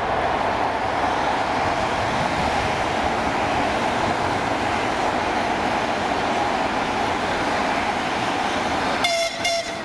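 Narrow-gauge TU10 diesel locomotive running steadily as it slowly approaches with its passenger train. Near the end a short high tone with overtones cuts in.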